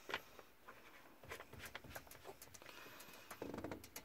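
Faint, irregular small clicks and light taps, handling noise, with a short cluster of them near the end.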